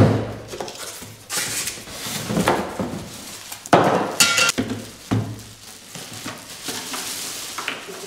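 Cardboard box and plastic packaging being handled as a small portable fridge is unpacked: a knock at the start, then scraping of cardboard and rustling of plastic wrap and foam inserts, in irregular bursts, loudest a little after the middle.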